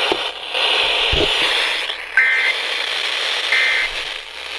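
Weather radio static hiss, then two short buzzy data bursts about a second and a half apart: the EAS SAME end-of-message signal that closes a broadcast alert.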